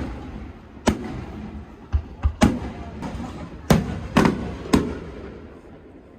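Aerial fireworks shells bursting, a string of about seven sharp bangs, each followed by a rumbling echo. The bangs come unevenly, some in quick pairs, and die away toward the end.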